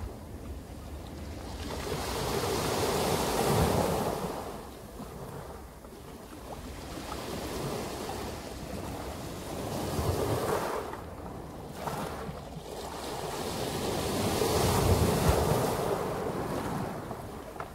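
Sea waves breaking and washing over a pebble beach, the surf swelling and fading in three broad surges.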